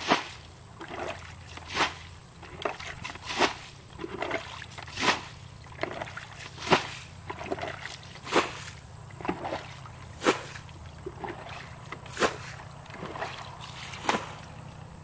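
Shallow muddy pond water splashing and sloshing as a person wades and works with their hands at the edge. A sharp splash comes about every one and a half to two seconds, with smaller sloshes in between.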